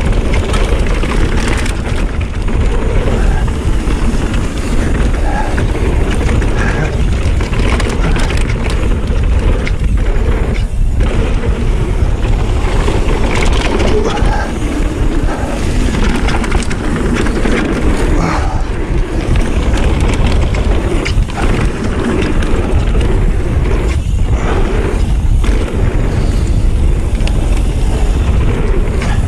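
Mountain bike descending a packed-dirt flow trail at speed: continuous loud rumble of knobby tyres on dirt and rattle of the bike, with heavy wind noise on the microphone.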